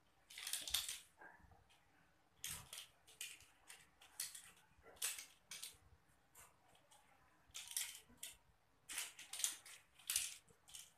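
Kittens' paws and claws scuffling and skittering on a tiled floor as they play-fight, in a dozen or so short scratchy bursts at uneven intervals; the loudest comes about a second in.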